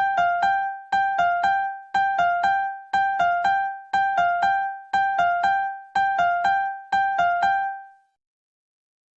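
Piano playing a short sound-effect figure: four quick notes alternating between two high pitches a step apart, repeated eight times at about one group a second, then stopping.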